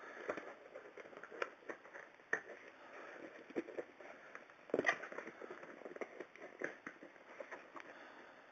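A mail package being opened by hand: the packaging crackles and rustles in an irregular run of clicks and small snaps, with one louder snap near five seconds in.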